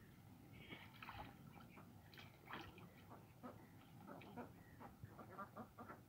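A duck preening and dabbling in shallow muddy water: faint, irregular little splashes and nibbling clicks of the bill.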